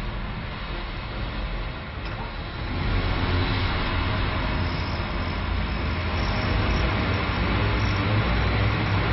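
Sound effect of a vertical-takeoff aircraft's fans and turbine engine running: a steady rushing noise over a deep rumble, swelling louder about three seconds in as the engines power up for the lift.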